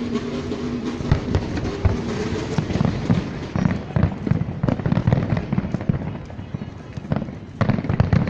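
Fireworks bursting in a rapid string of bangs and crackles, densest from about three to six seconds in, with another cluster near the end.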